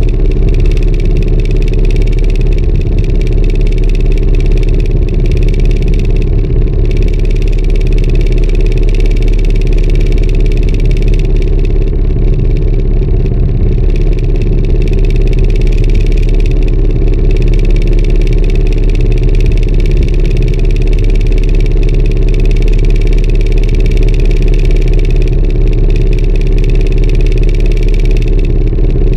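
Small wooden fishing boat's inboard engine running steadily at a constant speed.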